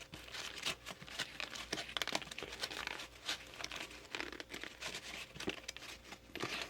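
Pieces of a cut-open spin-on oil filter being handled, with its pleated paper element and metal parts giving an irregular crinkling rustle and light clicks.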